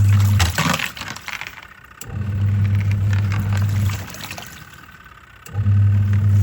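Twin-tub washing machine on its wash cycle: the motor hums for about two seconds, stops for about a second and a half, then hums again as the pulsator changes direction, with water sloshing in the tub between runs.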